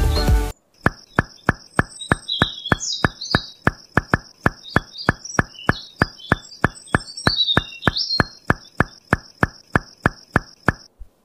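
Nature-ambience sound effect: a dry ticking about four times a second, over a steady high insect-like whine and scattered bird chirps. It starts about half a second in, as music cuts off, and stops just before the end.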